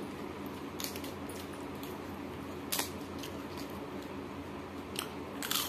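Close-up eating sounds of a person eating rice and papad by hand: a few short sharp clicks and crackles, the loudest about three seconds in and a longer crackle near the end, over a low steady hum.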